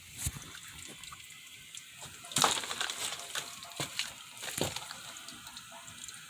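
Water leaking from a hot water heater, trickling and splashing, with a few sharp splashy hits, the loudest about two and a half seconds in.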